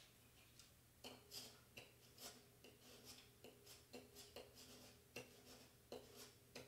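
Faint crinkling and rustling of plastic vinyl transfer tape and its paper backing being handled and pressed down by hand, a string of soft crackles two to three a second.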